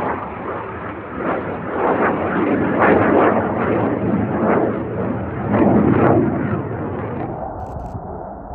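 Panavia Tornado's twin RB199 turbofans roaring loudly as the jet passes low, the roar swelling in irregular surges and easing a little near the end.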